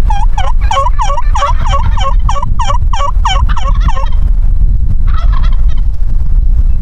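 Wild turkey gobbler gobbling: a rapid rattling run of notes lasting about four seconds, then a shorter call about a second later. Heavy wind rumble on the microphone runs underneath.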